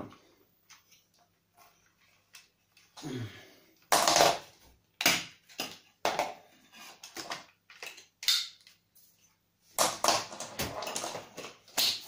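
Hard plastic parts of a PUPPYOO WP521 stick vacuum being handled and snapped together: scattered clicks and knocks starting about three seconds in, then a denser spell of clattering near the end. The motor is not running.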